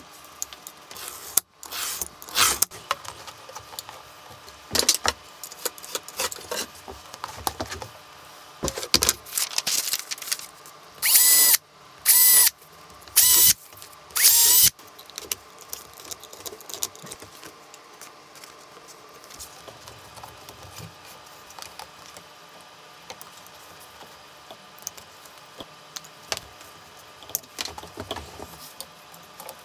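A handheld cordless drill run in four short bursts between about 11 and 15 seconds in, a steady whine each time, boring holes through a paper template into a neoprene rubber sheet. Before it come scattered knocks and scrapes of a knife cutting the rubber along a steel straight edge, and near the end a few snips of scissors trimming the rubber.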